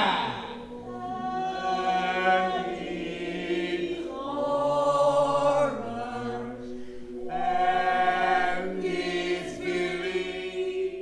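Choir singing long held chords in phrases that swell and fade, opening with a downward slide in pitch.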